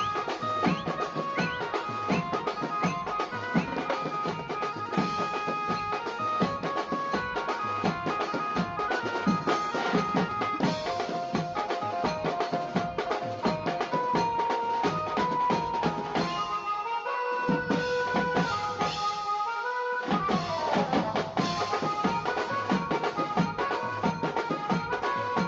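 Background music with fast, dense drumming and a melody over it; the bass and drums drop out briefly about two-thirds of the way through, then come back.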